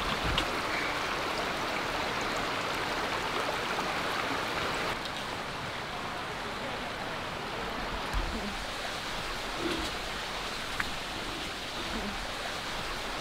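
Steady rushing of a shallow forest creek, dropping a little in level about five seconds in.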